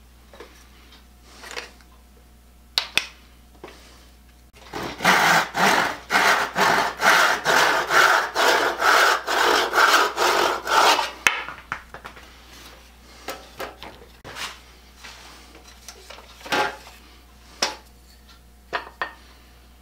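Hand tool rasping or sawing wood in quick, even back-and-forth strokes, about sixteen of them at a little over two a second, starting about five seconds in and lasting about six seconds. Scattered light knocks of tools being handled come before and after.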